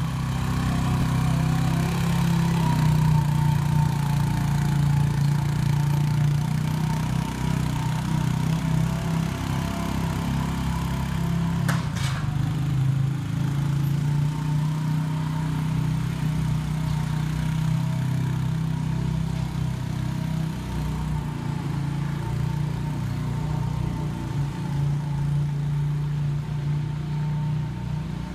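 A vehicle engine running steadily at an even speed, with a sharp click about twelve seconds in.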